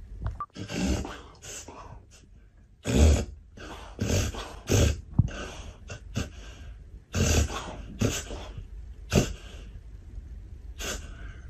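A Labrador breathing noisily in irregular short snorts and snuffles with its nose on the floor as it drifts off to sleep.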